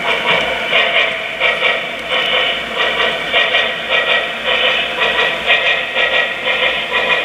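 Sound-decoder steam chuffing from an HO-scale Union Pacific Big Boy model, played through its small tender and smokebox speakers by a QSI Revolution DCC decoder. The exhaust beats come in a steady rhythm of about two a second as the locomotive runs.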